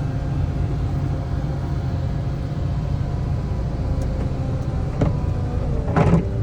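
Wheel loader's diesel engine running steadily while plowing snow with a sectional pusher, with a short clunk just after six seconds in.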